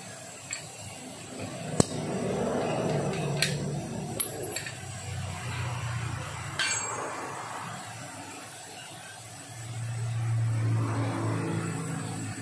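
Several sharp metallic clicks and clinks from work on a car wheel's valve, the loudest about two seconds in, over a low uneven hum that swells near the end.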